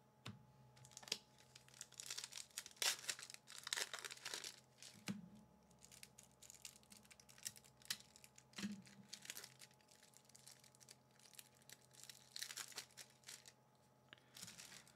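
Foil wrapper of a Magic: The Gathering Jumpstart booster pack being torn open and crinkled in several short, faint bursts, with a few soft knocks as it is handled.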